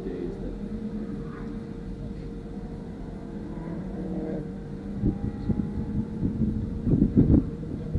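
Steady low rumble and a constant hum inside a parked car's cabin, with a cluster of louder low thumps and rumbling near the end.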